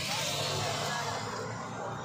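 Paper wrapper rustling and crinkling as a wrapped shawarma roll is handled, loudest in about the first second, over steady street-stall background noise.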